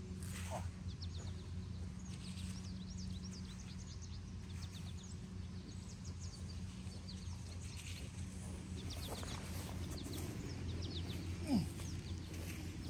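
Birds chirping outdoors, many quick high calls scattered throughout, over a steady low hum. Near the end a single short rising sound stands out as the loudest moment.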